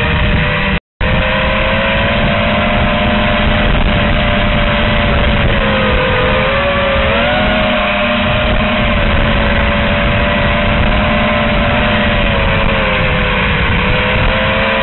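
Brushless motors and propellers of an FPV quadcopter on a TBS Source One frame, heard from its onboard camera. A loud buzzing whine of several pitches rises and dips as the throttle changes, over a rushing noise. The sound cuts out for an instant about a second in.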